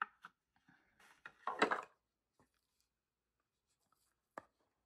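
A paperboard makeup palette being handled and opened by hand: a short spell of rubbing and rustling about a second and a half in, then a single sharp click near the end.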